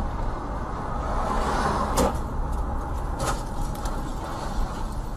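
Steady road and engine rumble inside a moving vehicle's cab, with a sharp click about two seconds in and another about three seconds in.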